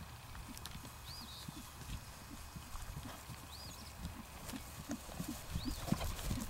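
A horse's hoofbeats trotting on grass: a steady run of dull thuds that grows louder near the end as the horse comes closer. A short high chirp is heard three times, about two seconds apart.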